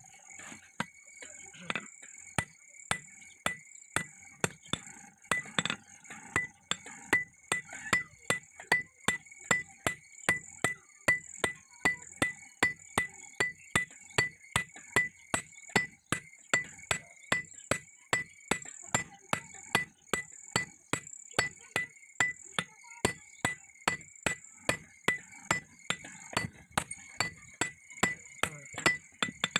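Blacksmith's hand hammer striking steel on an anvil while forging an axe head, in a steady rhythm of about two blows a second. Each blow has a short metallic ring.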